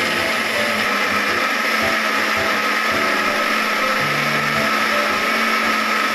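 Countertop blender motor running steadily at full speed, grinding shallots, garlic and turmeric into a smooth spice paste.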